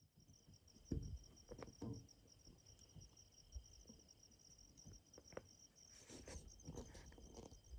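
Steady chorus of insects chirring in a high, rapidly pulsing trill. A few short, soft low thumps come through now and then, the strongest about a second in.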